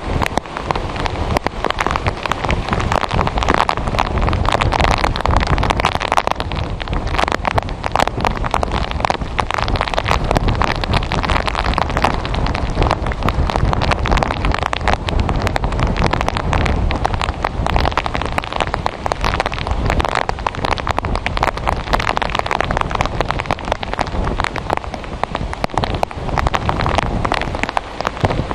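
Heavy rain falling in a dense, steady patter, with wind rushing over the microphone, as the rain curtain wrapped around a nearby tornado closes in.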